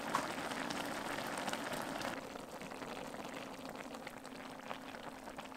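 Budae-jjigae (Korean army stew) boiling in a pot: a dense, steady crackle of bubbles popping, a little softer after about two seconds.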